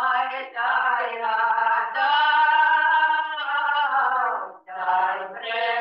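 Archival field recording of Ukrainian village folk singing, a wedding song sung in long held, bending notes. The audio breaks off briefly twice near the end, choppy playback over a video call.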